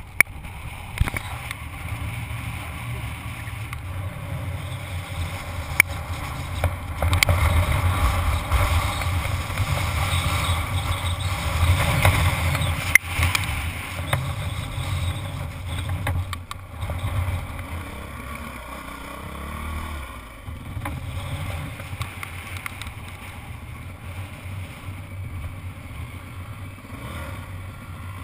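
Dirt bike engine running under way across bare rock, picked up by a helmet-mounted camera. It grows louder for several seconds in the middle, then settles lower, with a few sharp knocks.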